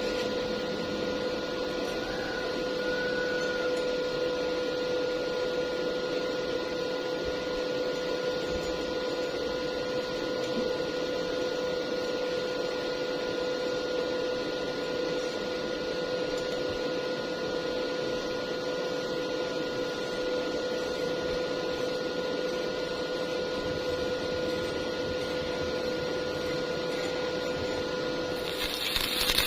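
A machine's steady hum with a fixed whine over even noise. Just at the end, a louder hissing noise sets in.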